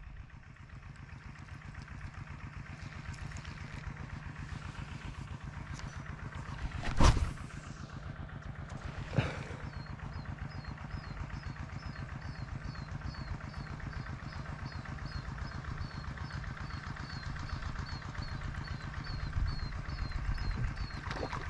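A small engine running steadily, with two short loud noises about seven and nine seconds in. A high chirp repeats about twice a second through the second half.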